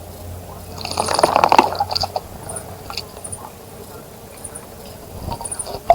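A small bird splashing in a bird bath, a flurry of wing-flicking water splashes about a second in that lasts about a second, with a few smaller splashes near the end.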